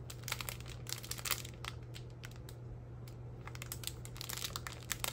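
Clear plastic bag holding small zip-lock packets of acrylic diamond-painting drills crinkling and crackling as it is handled, in short, irregular bursts.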